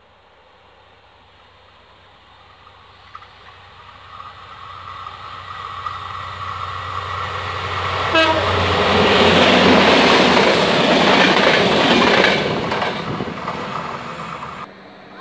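Diesel locomotive hauling passenger coaches approaches and passes close by, growing steadily louder, with a steady high whine as it nears. It is loudest as it goes past, then fades before a sudden cut near the end.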